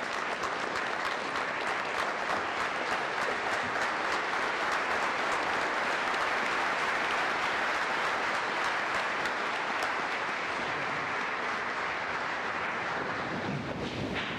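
Audience applauding: many hands clapping together in a steady, dense wash that dies down near the end.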